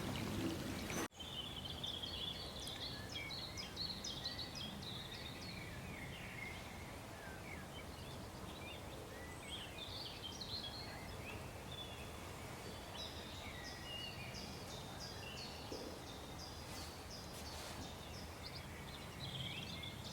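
Many small birds chirping in short, high notes over a steady outdoor background hiss. About a second in, a louder rush of water-like noise cuts off abruptly.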